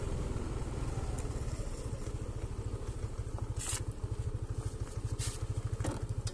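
Small engine running steadily with a fast, even low pulsing, with a few brief scrapes or rustles in the second half.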